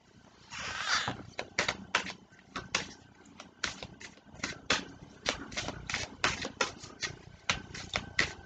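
A deck of cards being shuffled by hand, overhand: a brief rustling swish about half a second in, then a string of sharp slaps and taps as the cards drop onto the pile, two or three a second.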